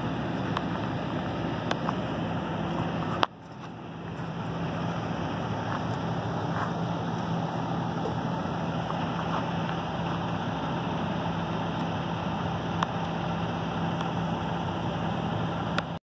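Parked semi truck's diesel engine idling steadily with a constant hum, mixed with wind rush on the microphone. A sharp click about three seconds in, after which the sound briefly drops away and swells back.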